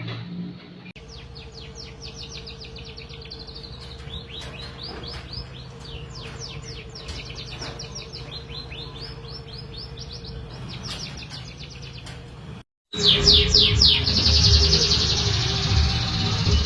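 Canary singing: long trills of quick, repeated downward-sweeping chirps. After a brief cut about 13 s in, the song comes back louder over a noisy background.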